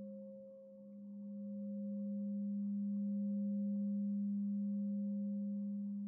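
10-inch G# Aqua Aura Gold alchemy crystal singing bowl sounding a sustained, pure low G# tone with a fainter higher overtone above it. The tone dips in loudness about half a second in, then swells back and holds.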